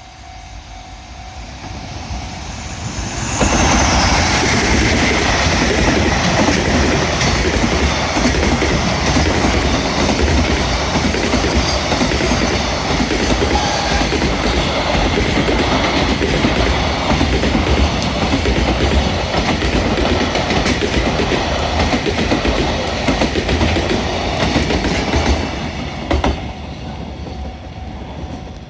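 Freight train hauled by an electric locomotive passing close by. It grows louder over the first three seconds, jumps to full volume as it arrives, then runs for over twenty seconds with wagon wheels clattering over the rail joints, and fades near the end.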